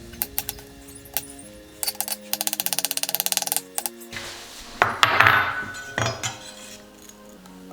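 Knife dicing an onion on a cutting board: scattered cuts, then a fast run of about a dozen chops a second for over a second, and a louder scrape about five seconds in. Background music plays underneath.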